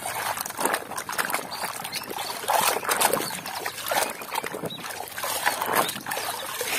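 Thick mud squelching and sloshing as a plastic toy truck is pushed and turned through it by hand, with many short, irregular wet smacks.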